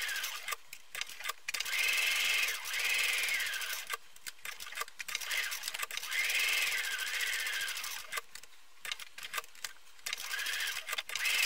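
Electric sewing machine stitching a seam in several short runs, its motor whine rising and falling with each run, with brief pauses and small clicks in between.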